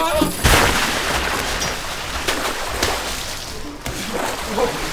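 A big splash about half a second in as a person plunges into water, followed by water sloshing and splattering that slowly dies down.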